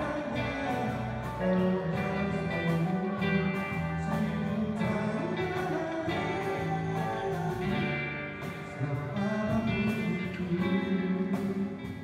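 A live acoustic band playing a slow pop song: strummed acoustic guitars, electric guitar and keyboard over a steady cajón beat, with a man singing into a microphone.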